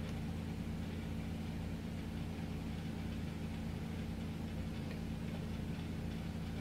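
A steady low mechanical hum made of several low pitches that hold level and unchanged.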